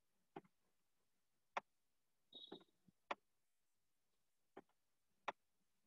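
Near silence: room tone with about five faint, scattered clicks as handwriting is entered on the computer, and one brief faint high beep about two and a half seconds in.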